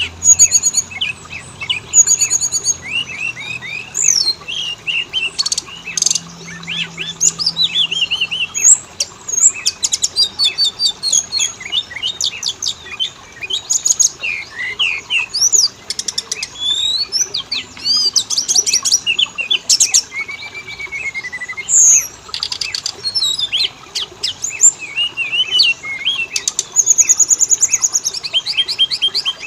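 Oriental magpie-robin (kacer) singing a rapid, varied song of clear whistles, fast trills and sharp scratchy notes, without a break.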